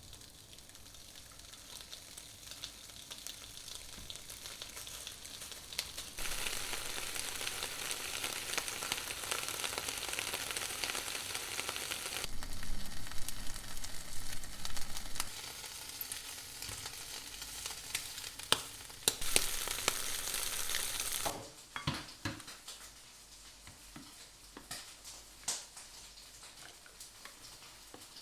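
Food sizzling as it fries in a pan, with utensil clicks as it is stirred. The sizzle starts about six seconds in, grows louder midway, and cuts off suddenly, followed by a few sharp clinks.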